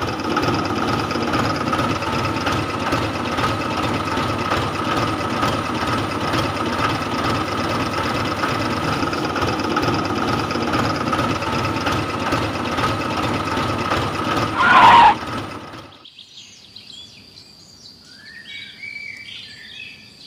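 A homemade toy tractor running: a steady mechanical whir with a constant high whine. It swells briefly about fifteen seconds in and cuts off soon after, leaving faint bird chirps.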